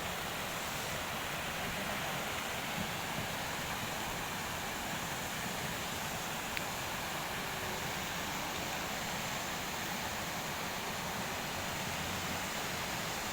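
Steady rushing of a waterfall pouring straight into the sea, an even wash of water noise.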